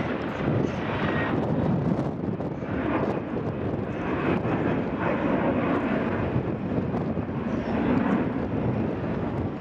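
Airbus A320's twin jet engines running as the airliner climbs steeply away, a steady, even jet noise with no breaks.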